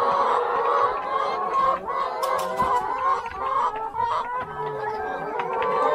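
A flock of brown laying hens clucking and calling over one another without a break, with a few sharp clicks.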